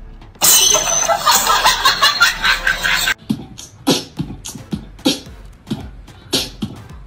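A loud, dense wash of noisy sound for about three seconds, cutting off abruptly. It is followed by a steady percussive beat of low thumps and hissy hits, like beatbox-style music.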